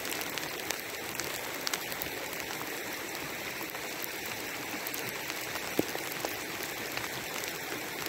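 Steady patter of sleet and rain falling, with scattered light ticks of individual drops.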